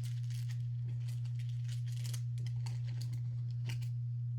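Paper and plastic packaging rustling and crinkling in short scattered bits as items are handled and taken out of a box, over a steady low hum.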